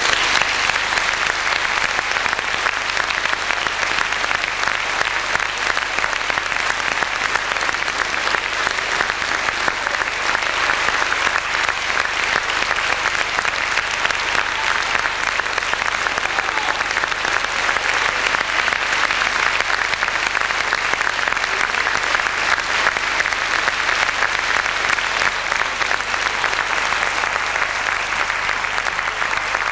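Audience applauding: dense, steady clapping that breaks out all at once and holds at an even level.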